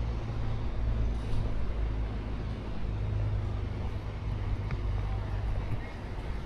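Low, steady rumble of an idling vehicle engine, with a couple of faint ticks.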